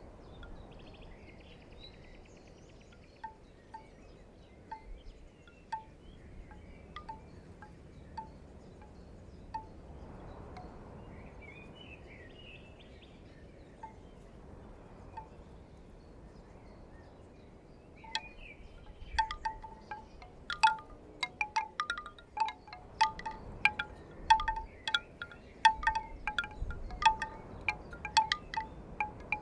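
Bamboo wind chime knocking in the wind: sparse single clacks with a short hollow ring at first, turning into a dense clatter of many knocks about two-thirds of the way in, over a low wind rumble.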